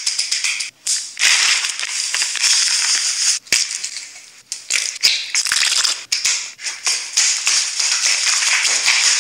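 Potatoes deep-frying in hot oil: a dense, crackling sizzle full of small pops, broken by a few abrupt short gaps.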